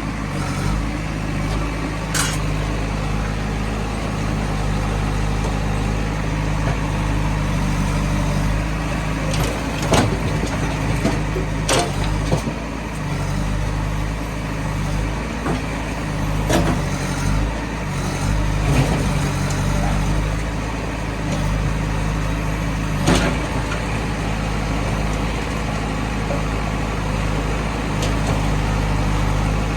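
Diesel engine of a working backhoe loader and tractor running steadily, with a few sharp clanks scattered through it as mud is loaded.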